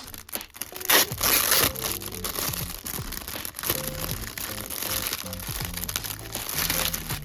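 Background music over crinkling and rustling of packaging being handled, loudest about a second in.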